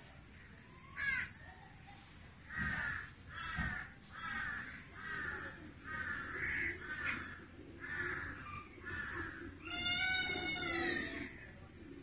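An animal calling outdoors: a run of about eight short calls, one every second or less, followed by one longer drawn-out pitched call near the end.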